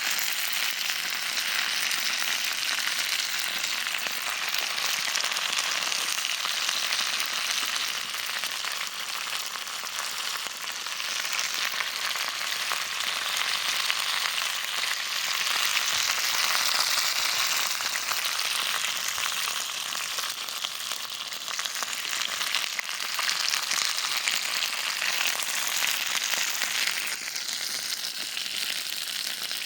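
Meat sizzling steadily on a hot grill, a dense crackling hiss of fat and juices frying.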